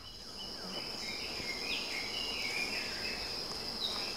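Outdoor ambience of insects trilling on one steady high pitch, with a few short bird chirps in the middle.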